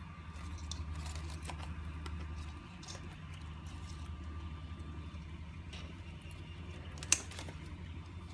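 Light clicks and rustles of plants being handled and cut from a hydroponic tray, with one sharp click about seven seconds in, over a steady low hum.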